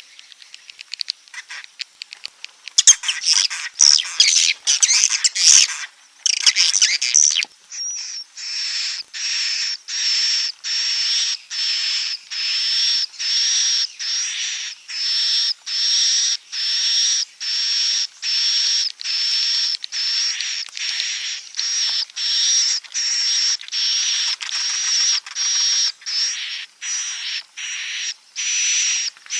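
Swiftlet roosting calls, the 'walet inap' lure played in swiftlet houses to draw the birds in to roost. Rapid clicking gives way to a few seconds of dense, high chattering, then a long run of evenly spaced, high buzzy chirps, a little more than one a second.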